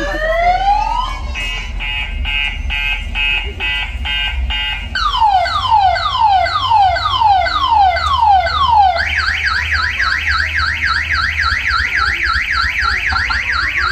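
Siren and car-alarm style effects played through a truck-mounted battle sound system: a rising whoop, then a steady pulsing beep, then falling sweeps about twice a second, changing about nine seconds in to a fast warbling yelp about four times a second. A steady low bass hum runs underneath.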